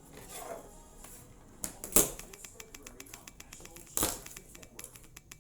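A run of quick, light clicks and taps, with two louder knocks about two seconds apart.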